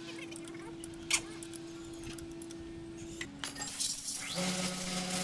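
Metal parts or tools clinking, with one sharp clink about a second in, over a steady hum that drops in pitch a little past three seconds and changes to a lower, stronger hum about four seconds in.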